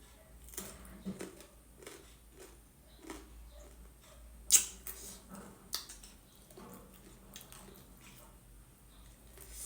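A person eating at close range: chewing and mouth smacks, with scattered short clicks, the sharpest about four and a half seconds in.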